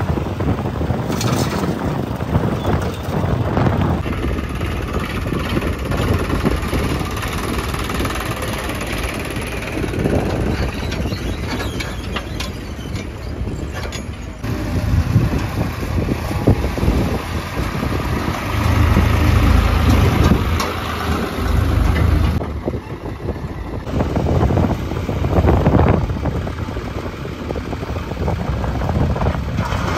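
Diesel engines of an excavator and farm tractors running steadily, swelling and easing off now and then, with several abrupt shifts in the sound.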